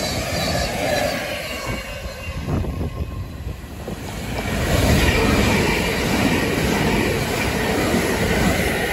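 Electric multiple-unit trains running past a station platform: the end of a Thameslink Class 700 passing, a brief quieter dip, then a Southern Class 377 Electrostar pair approaching and running by close, louder from about five seconds in.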